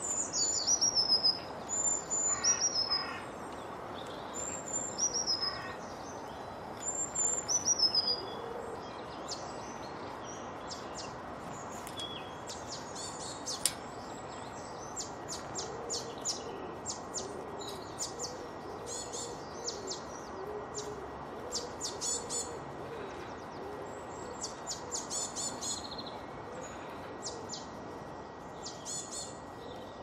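Garden songbirds calling: for the first several seconds, high whistled notes falling in pitch, repeated about every two seconds, then a busy run of short high chirps, over a steady background hiss.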